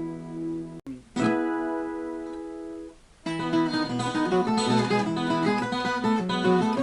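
Acoustic guitar music: chords struck and left to ring out, then busier, faster picking from about three seconds in.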